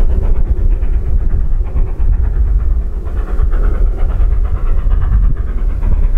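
Steam locomotive working past, its exhaust beats over a heavy, steady low rumble.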